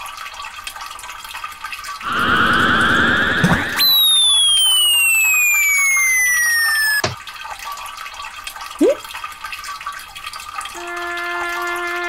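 Cartoon sound effects over a soft running-stream ambience: a brief warbling trill, then a long falling whistle that stops suddenly with a low thud. A quick rising swoop follows, and near the end a few steady held tones set in.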